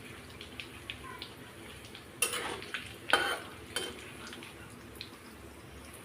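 A metal spoon stirring and scraping whole spices in hot oil in a kadhai, with three louder scrapes in the middle, over a faint crackle of the frying oil.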